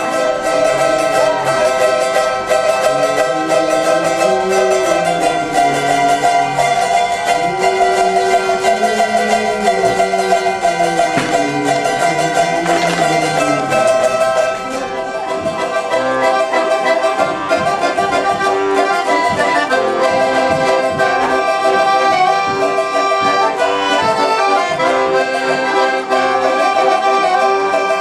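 Accordion playing a traditional folk tune, its sustained chords running steadily, with a lower wavering melody line in the first half.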